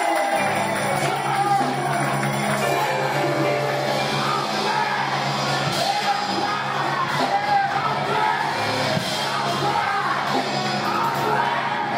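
Church music: sustained low instrumental chords begin about half a second in, under shouting and singing voices of the pastor and congregation.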